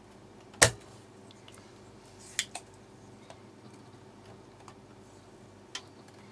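Sharp clicks of a spring-loaded desoldering pump firing while parts are desoldered from an amplifier circuit board: one loud snap about half a second in, a softer double click near the middle, and another small click near the end.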